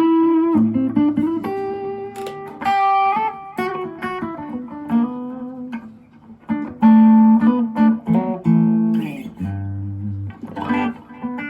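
Electric guitar through a FoxGear Tweed 55 amp and Vox BC108 cab, played with a Zoom G1Four lead patch of Zen overdrive and delay. It plays a lead line of held single notes and double stops.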